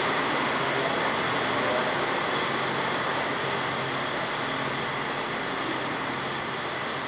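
Steady rushing background noise with a faint low hum, slowly growing quieter.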